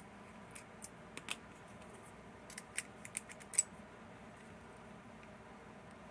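Sharp little metallic clicks and taps, about ten of them in the first four seconds, from handling a partly disassembled Fichet 787 lever lock with its key and core; after that only faint hiss.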